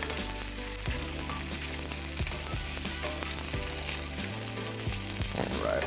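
Cooked pasta noodles frying in hot oil in a skillet: a steady sizzle, under background music of low held notes.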